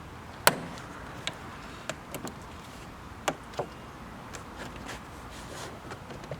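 A series of sharp clicks and knocks from handling a car's plastic door trim panel during removal. The loudest click comes about half a second in, followed by about half a dozen irregular ones.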